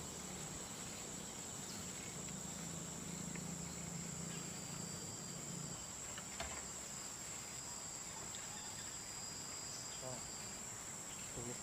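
Steady chorus of insects, a continuous high-pitched trill that neither rises nor falls, like a nature ambience of crickets. A faint low hum sits under it for the first half and stops about six seconds in.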